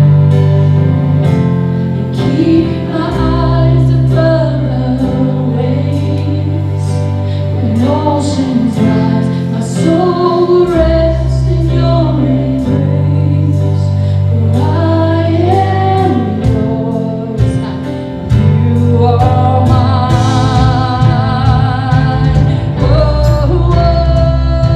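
Church worship band playing a slow song with sung vocals over sustained bass notes and a steady light cymbal beat; the singing holds long notes with vibrato near the end.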